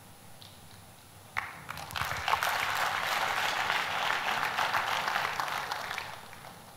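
Audience applauding in a large hall: the clapping starts about a second and a half in, holds steady, and fades away near the end.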